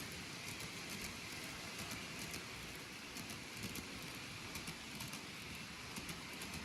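N-gauge model train running along its track: a steady rattling patter of small wheels and motor, with faint clicks.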